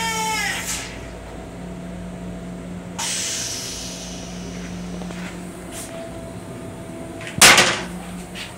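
Toilet flush on a Long Island Rail Road M7 railcar: a whining rinse cycle washes the stainless-steel bowl and winds down in the first second, and a hissing rush comes about three seconds in and fades. Near the end the toilet lid is shut with a loud clack, over a steady low hum.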